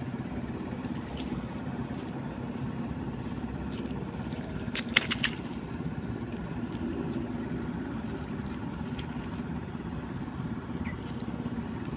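Steady low mechanical hum of a motor, with a short cluster of sharp clicks about five seconds in.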